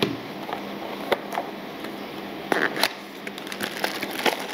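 Cardboard packaging being handled on a wooden desk: a knock as a small device is set down at the start, then scattered clicks, taps and scrapes of a cardboard insert being lifted out of the box, loudest about two and a half to three seconds in.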